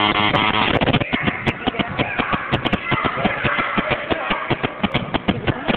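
Indoor basketball game sounds: a quick run of knocks and thuds from the ball and players' feet on the gym floor, several a second, under the voices of players and onlookers. A steady buzzing tone sounds at the start and stops within the first second.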